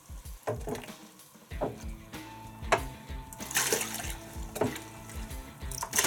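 Tea water sloshing and splashing as a mug is scooped through a washing machine drum half full of it, over background music with a steady beat that comes in about a second and a half in.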